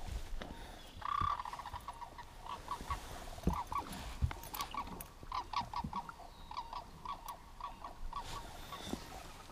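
An animal calling: a run of short, high, repeated calls, two or three a second, starting about a second in, with a few dull knocks between them.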